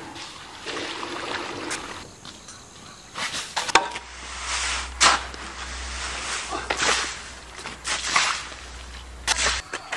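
A shovel scraping across concrete as it turns a heap of dark gravel mix, in separate strokes about a second apart, with water splashing onto the heap from a bucket near the end. At first, gravel is scooped into a plastic bucket.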